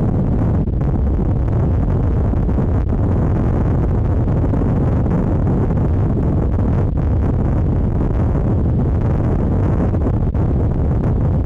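Vehicle driving along at speed: a steady low rumble of engine and road noise, with wind buffeting the microphone.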